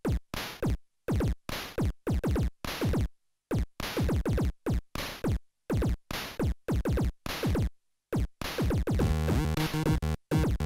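Royalty-free electronic background music: short, clipped synthesizer notes with sharp attacks and gaps between them, turning fuller and denser, with a steady bass line, about eight seconds in.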